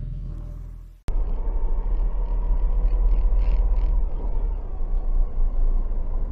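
The tail of intro music fading out, then after a sudden cut a car's steady low engine and road rumble heard from inside the cabin through a dashcam microphone.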